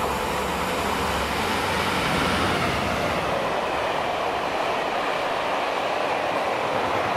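British Rail Class 66 diesel-electric locomotive passing close by with its two-stroke V12 engine running, then a rake of loaded hopper wagons rolling past with steady wheel-on-rail noise. The engine sound is strongest in the first few seconds and gives way to the rolling of the wagons.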